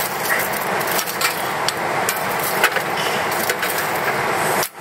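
Wood fire crackling in a small steel fire grill, with scattered sharp clicks from the burning firewood and from tongs poking it, over a steady hiss.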